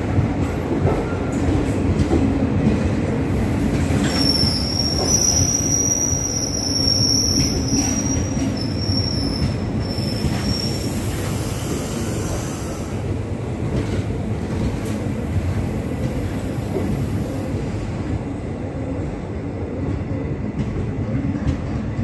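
Passenger train coaches rolling past, their wheels rumbling and clattering on the rails. A high-pitched wheel squeal comes in about four seconds in and fades out by about eleven seconds.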